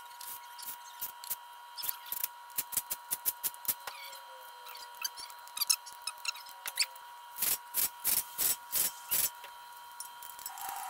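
Hand ratchet and torque wrench work on an engine block: scattered sharp clicks of tool and bolts, then a run of five quick ratcheting strokes about three-quarters of the way in.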